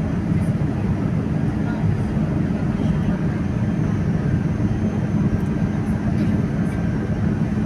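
Steady low engine and airflow noise of a passenger jet, heard from inside the cabin.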